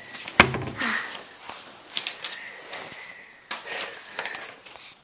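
Paper crackling and rustling in scattered light clicks as a folded clue note is handled and opened, with a single sharp knock about half a second in.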